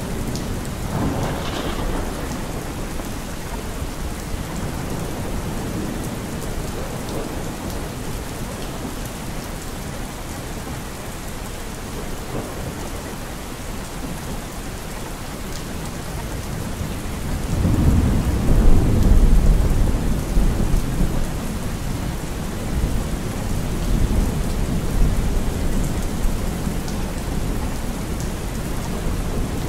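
Thunderstorm: steady rain with low rolls of thunder, the loudest swelling about 18 seconds in.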